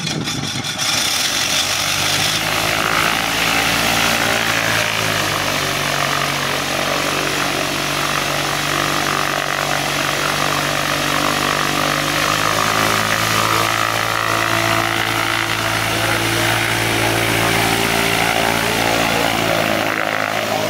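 Motor glider's piston engine and propeller running steadily while the aircraft taxis on the ground.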